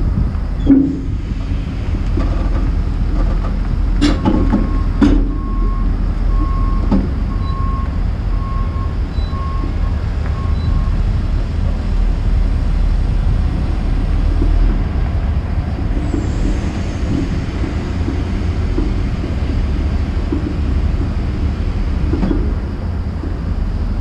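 Junttan PM23 crawler pile driver's diesel engine running steadily as the machine tracks slowly up onto a lowboy trailer deck. Sharp metal clanks come a few times in the first seven seconds, the loudest about a second in. A beeping alarm sounds about once a second from about four to eleven seconds in.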